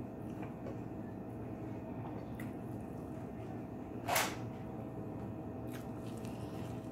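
Eating with the hands: small wet clicks of fingers and mouth working on fried food, with one louder short wet snap about four seconds in, over a steady low hum.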